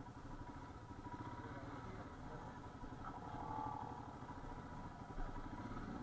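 Royal Enfield Himalayan's single-cylinder engine idling faintly and steadily.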